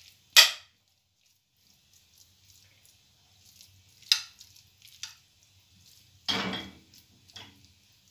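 Spoon scraping and knocking a shredded chicken filling out of a bowl into a pastry-lined baking dish: a few sharp clicks, the loudest about half a second in, and a longer scrape about six seconds in.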